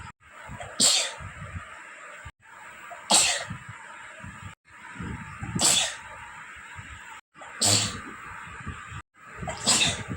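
A woman sneezing five times, about two seconds apart, each sneeze sudden and loud. Between sneezes the sound drops briefly to silence, as though the recording is cut.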